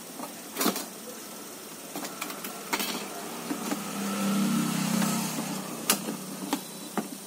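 Clicks and knocks of circuit boards and cables being handled inside an opened LED TV's plastic back cabinet. A low hum swells and fades over about two seconds in the middle.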